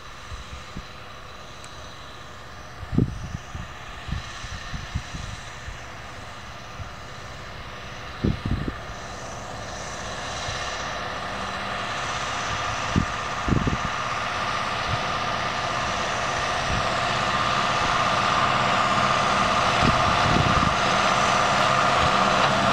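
Zetor tractor's diesel engine running steadily under load as it pulls a maize planter toward the listener, growing steadily louder as it approaches. A few short low thumps break in along the way.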